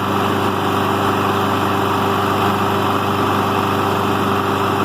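Push lawn mower's small engine idling steadily, a little high because its governor linkage needs adjusting (the mower has no throttle control).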